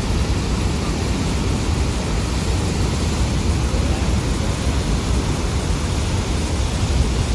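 Steady roar of Niagara Falls heard close up in its mist, with wind buffeting the microphone in uneven low rumbles.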